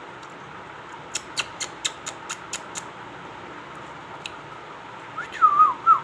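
Small caged parrots calling: first a quick run of about seven short, sharp chirps, then near the end a loud warbling whistle that bends up and down in pitch. A steady hiss runs underneath.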